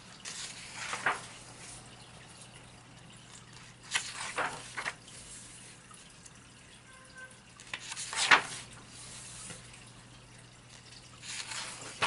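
Paper pages of a colouring book being turned and smoothed flat by hand: paper rustling and sliding in four short bouts, the loudest about eight seconds in.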